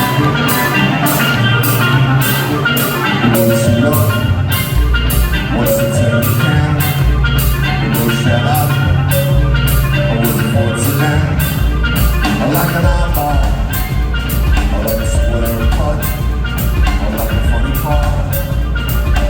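A band playing live, with no singing: drums with a cymbal struck about twice a second, a heavy bass line, and a bright, chiming melody that repeats.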